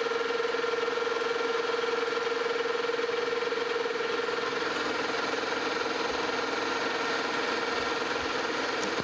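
Metal lathe running at a steady speed while a carbide turning tool cuts the outside diameter of a steel ring blank: a constant hum with a steady mid-pitched whine over a hissing cutting noise.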